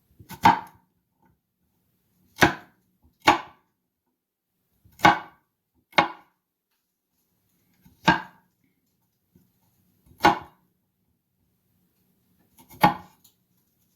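Kitchen knife chopping garlic on a cutting board: eight separate sharp strikes, unevenly spaced about one to two and a half seconds apart, while the garlic is being minced.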